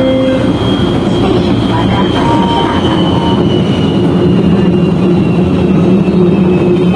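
Electric passenger train running, heard from inside the carriage: a steady rumble, with a high motor whine that slowly falls in pitch as the train slows.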